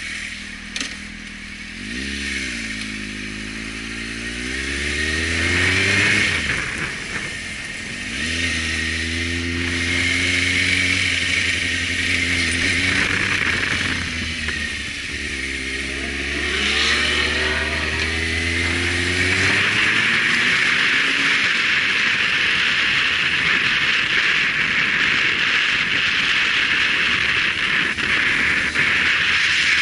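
Motorcycle engine idling, then pulling away and accelerating through three gears, its pitch rising in each gear and dropping back at each shift. From about twenty seconds in, a steady wind rush over the camera's microphone covers the engine as the bike runs at speed.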